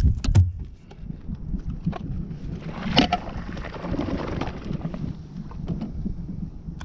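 Wind buffeting the microphone with a steady low rumble, over scattered small clicks and rustles of handling as a caught porgy is unhooked by hand. A sharp knock comes about three seconds in.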